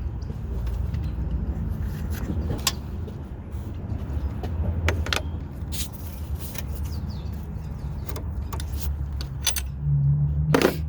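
Metal hand tools clicking and clinking: the Allen key being pulled from the serpentine belt tensioner and wrenches being handled. The clicks are scattered and separate, with a longer rattle near the end, over a steady low hum.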